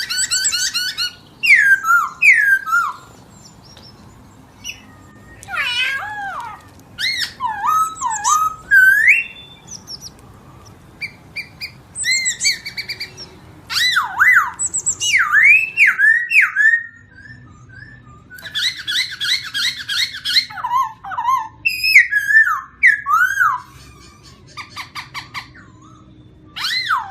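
A songbird singing loud, varied phrases of clear whistled notes, many swooping down and back up, with short pauses between the phrases.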